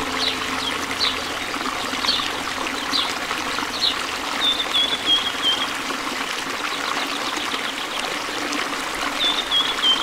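River water rushing over rocks below a waterfall with a steady hiss, with a bird calling over it: short falling chirps about once a second at first, then two short runs of high notes, one midway and one near the end.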